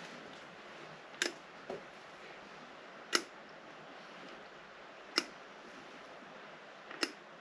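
A wrench clicking as the rocker cover bolts are tightened: four sharp single clicks about two seconds apart, with a softer tick after the first, over a faint steady hiss.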